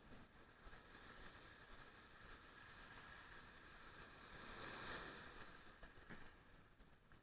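Faint wash of sea surf, slowly swelling about four to five seconds in and then fading.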